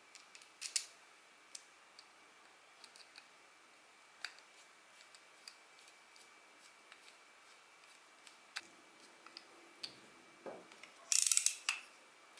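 Light, scattered clicks and taps of small metal spinning-reel parts and tools being handled, with a quick run of louder clicks about eleven seconds in.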